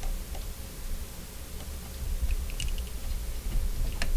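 Small scattered clicks and taps of a precision screwdriver tip working against the camera's plastic body as it is levered in a screw hole to pry a sealed piece loose, over a low rumble of the camera being handled. A few faint clicks come in the middle and one sharper click near the end.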